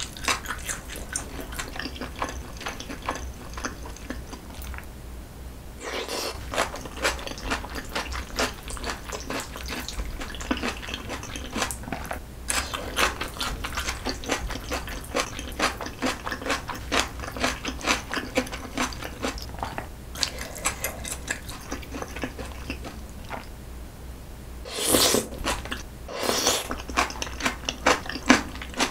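Close-miked chewing of spicy black-bean-sauce noodles with squid and chili: a dense run of small wet smacks and clicks. Near the end the noodles are slurped in with a louder sucking rush.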